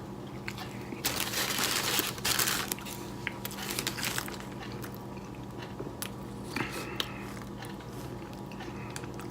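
Paper wrapper of a bean burrito crinkling as it is opened, for about a second and a half, then scattered small clicks and rustles of the food being handled, over a steady low hum.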